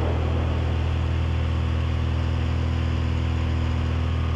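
Cessna 182's piston engine and propeller droning steadily in the cabin at climb power just after takeoff.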